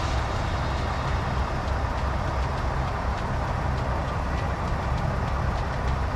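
Steady low rumble of a semi truck's diesel engine idling, heard from inside the parked cab, with an even hiss and faint light ticking over it.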